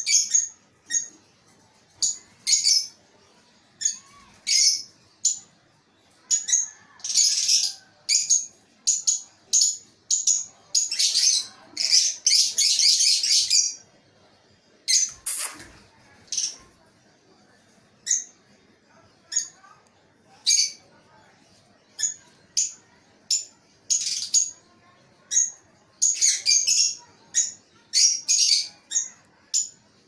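Caged lovebirds and a cockatiel calling: a steady series of short, high-pitched chirps, many a second apart, with longer spells of chattering in places.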